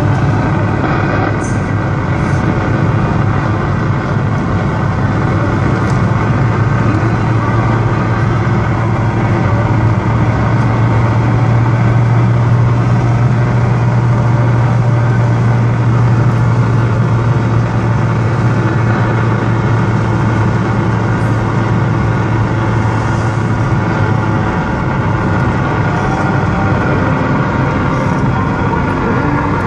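Car AM radio hissing with static, with a few faint crackles that come from lightning. The car's low steady drive drone sits under it.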